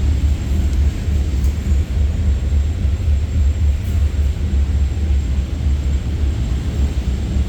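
Churros dough extruding machine running with a steady low rumble.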